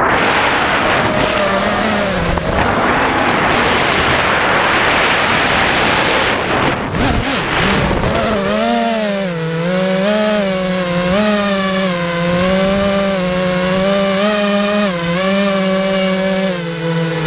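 5-inch FPV quadcopter's brushless motors and propellers, recorded by the onboard GoPro Hero3. A rough rushing noise fills the first half; from about halfway a loud buzzing whine takes over, its pitch wavering up and down with the throttle.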